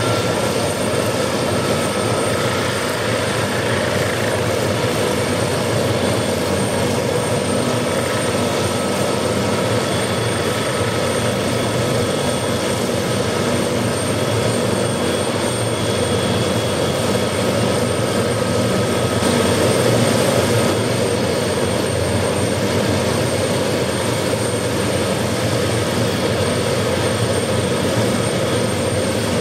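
1988 McDonnell Douglas 369E (MD 500E) helicopter running on the ground with its rotors turning. Its Allison 250 turboshaft gives a steady high whine over the rotor and exhaust noise.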